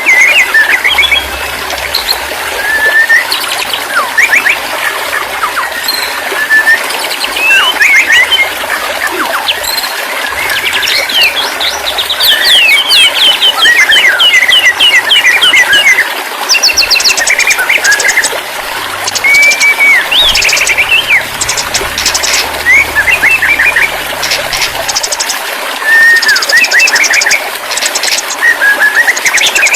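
Dense songbird chorus: several birds singing at once in overlapping whistles, sliding notes and fast chirping trills, with high buzzy rattles through the middle stretch.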